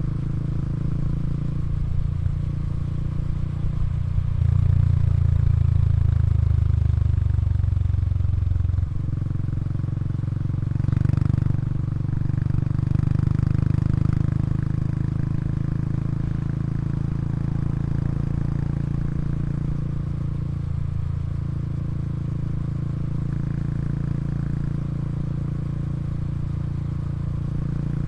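Exhaust of a Honda Super Cub 110 Pro's small single-cylinder four-stroke engine idling steadily, with the throttle held up for about four seconds from roughly four seconds in, then a short blip a couple of seconds later and a milder one soon after.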